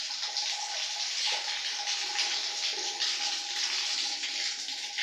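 Water running steadily from the spout of a wall-mounted bath mixer, its diverter turned to the tap outlet. A faint steady whistle sits under the rush of water from about two seconds in.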